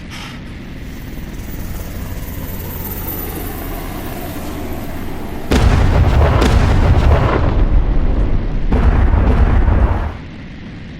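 Added destruction sound effect of a house being crushed. A low rumble builds slowly, then about halfway through comes a sudden, much louder crashing rumble that lasts several seconds and drops back near the end.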